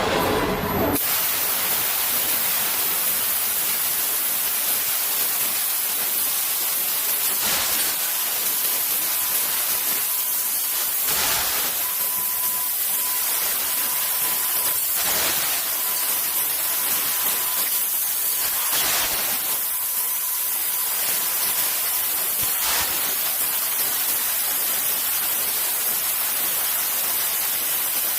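CNC fiber-laser tube cutter cutting metal tube, its assist-gas jet hissing steadily, with a brief louder surge every few seconds. A faint high tone sounds for a few seconds midway.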